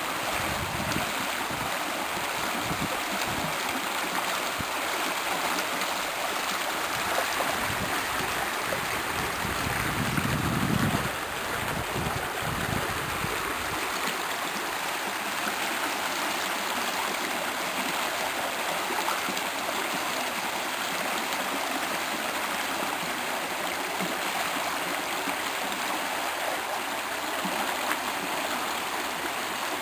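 Rain-swollen creek rushing steadily under the bridge, with a brief low rumble about ten seconds in.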